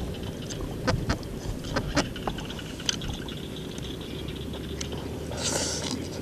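Fingers picking through a crispy banh chheo (Khmer rice-flour crepe) with fresh leaves and bean sprouts, making scattered small clicks and crackles. Near the end there is a louder rustling crunch as a leaf-wrapped bite is eaten.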